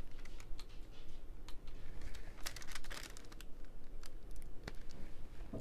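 Clear plastic cover film crinkling over a diamond painting canvas, with scattered light clicks and taps as a drill pen and fingers work the resin drills and painter's tape.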